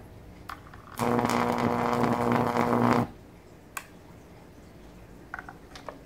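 High-voltage arc from a microwave oven transformer buzzing loudly for about two seconds, a coarse mains-frequency hum where a metal rod is held to the electrode, starting and stopping abruptly. A few faint clicks follow.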